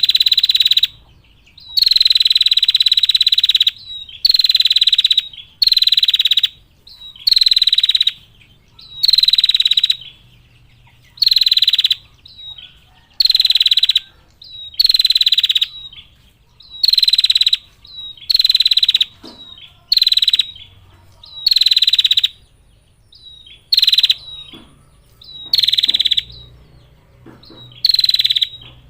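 Female prinia giving a long series of loud, rattling trill calls, each about a second long and repeated about every one and a half to two seconds. This is the female's 'ngetir' call, used to call in males.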